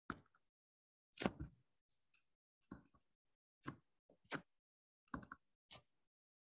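Stylus tapping and clicking on a tablet screen during handwriting: about seven short, sharp clicks at irregular spacing, the one just over a second in the loudest, with near silence between them.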